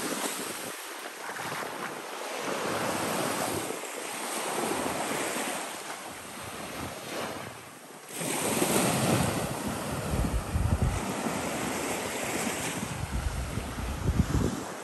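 Small waves washing up a sandy shoreline and drawing back, swelling and fading every few seconds. From about halfway through it is louder, with wind buffeting the microphone in low rumbling gusts.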